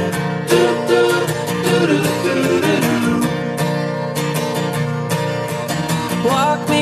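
Background music: an upbeat acoustic-guitar song with a steady strummed beat.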